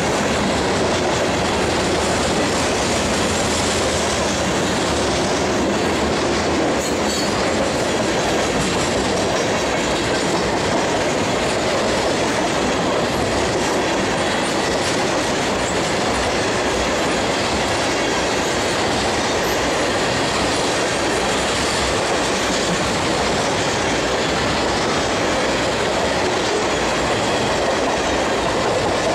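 Freight cars rolling steadily past at close range, first covered hoppers and then tank cars. Their steel wheels clatter in a clickety-clack rhythm over the joints of jointed rail.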